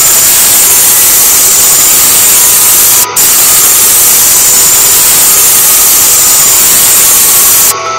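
Loud, steady static hiss from a badly degraded TV recording, with a brief dropout about three seconds in. Near the end the hiss cuts out and faint music comes through.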